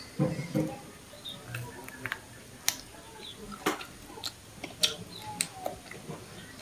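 Scattered small clicks and wet smacks, roughly one a second, from chewing and from handling a grilled cuttlefish on a banana leaf, with a brief low sound right at the start.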